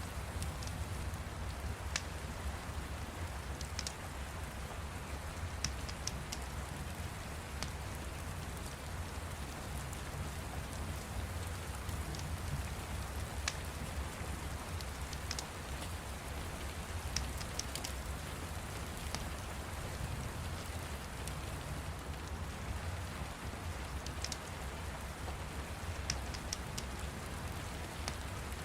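Steady rain, with scattered sharp crackles from a wood fire.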